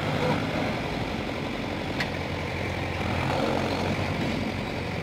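Mahindra 265 DI tractor's three-cylinder diesel engine running steadily under load, pulling a trolley full of soil. A single short click sounds about two seconds in.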